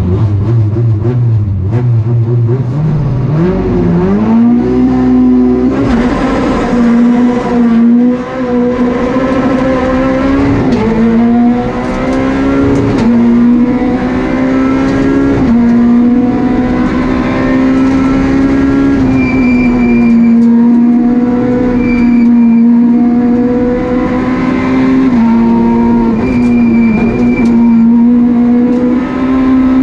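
Peugeot 208 R2 rally car's naturally aspirated 1.6-litre four-cylinder engine, heard from inside the cabin. It runs at low revs, then launches hard about three seconds in. From there it revs high, and the pitch drops briefly at each quick gear change as the car accelerates along the stage.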